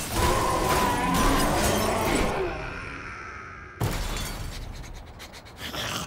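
Cartoon crash and shattering sound effect: a loud smash with breaking glass and clattering debris that dies away over a couple of seconds, then a second sudden crash a little under four seconds in that also fades.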